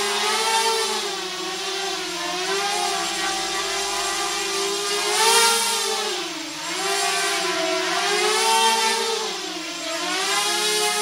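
Racing mini quadcopter's four Emax 2204 2300 kV brushless motors and propellers whining, the pitch rising and falling over and over with the throttle. It is loudest about five seconds in, as the quad climbs toward the ceiling.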